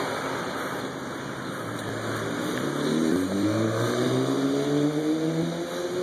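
A motor vehicle's engine accelerating, its pitch rising steadily through the second half, over a constant hiss of street noise.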